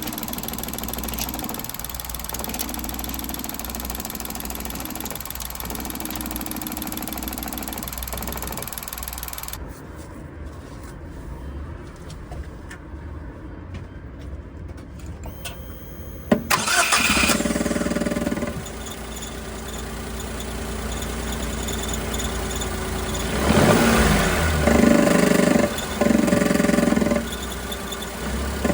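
Suzuki Every engine running, with an abnormal droning, squealing note that comes and goes in spells of a second or two. It is presented as the noise of a worn crankshaft thrust bearing. A sharp click sounds partway through.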